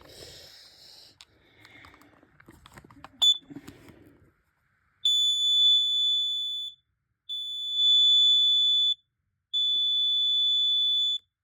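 Household gas alarm sounding: one short beep, then three long, steady, high-pitched alarm tones of about a second and a half each with short gaps between. Before the tones, a few seconds of faint clicks and rustling as the unit is handled.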